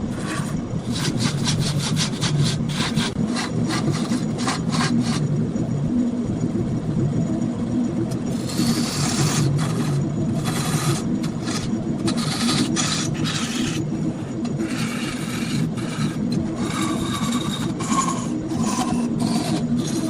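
Wood lathe running with a steady low hum while a turning tool cuts and scrapes the spinning wood in many short bursts, with a pause in the cutting of a few seconds a third of the way in.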